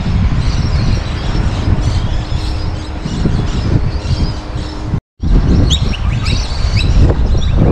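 Birds chirping in short, high calls over a strong low rumble. The sound cuts out completely for a moment about five seconds in, then the chirping carries on.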